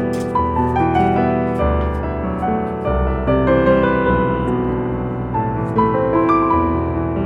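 Background music: soft piano melody over sustained bass notes.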